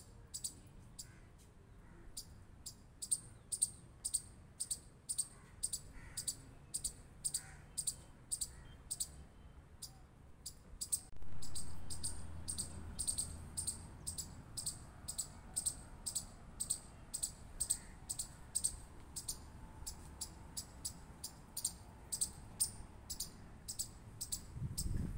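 A chipmunk giving its repeated high-pitched chip call, about two or three chips a second, with a short pause near the middle.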